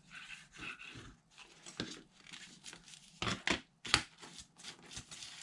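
Paper rustling and crinkling as a glued paper strip is folded over and pressed down by hand, with a few sharp taps a little past three seconds in, the loudest near four seconds.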